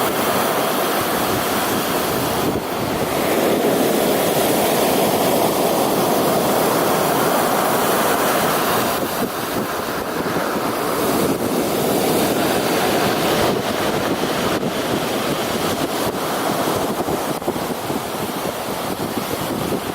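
Sea waves breaking and foaming: a continuous rushing surf that swells and eases slightly.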